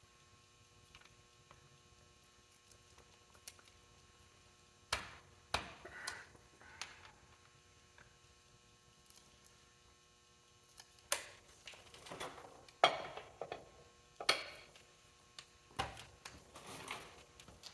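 Scattered clinks, knocks and scrapes of hand tools and metal parts while a forklift transmission and transaxle are taken apart, over a faint steady hum. The first few seconds are nearly quiet, and the knocks come more often in the second half.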